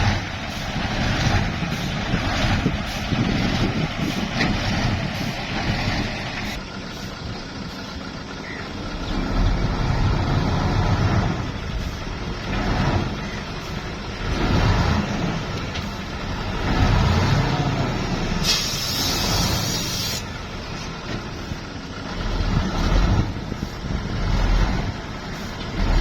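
Nissan dump truck's diesel engine running, its rumble swelling and fading several times, with a short hiss of air about two-thirds of the way through.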